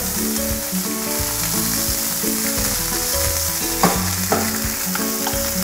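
Red curry paste sizzling steadily as it fries in a hot frying pan on a gas burner, over quiet background music.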